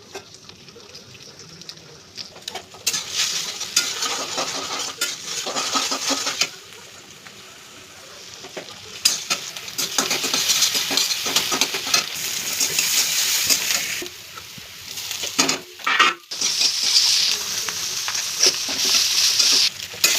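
Food frying in a hot pan while being stirred with a utensil: sizzling in spells of several seconds with quieter gaps, and clinks of the utensil against the pan.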